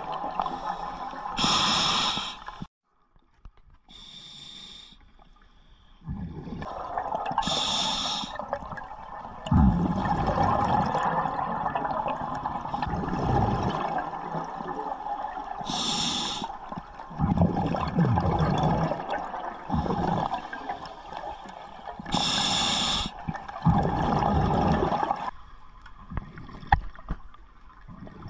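Scuba diver breathing through a regulator underwater: a short hiss of inhalation every six to eight seconds, each followed by several seconds of bubbling as the exhaled air escapes. The sound drops almost to nothing for a few seconds near the start.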